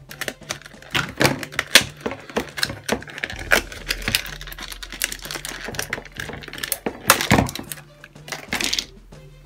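Stiff clear plastic blister packaging clicking and crackling as it is cut with a utility knife and pulled apart, with a loud crackle about seven seconds in.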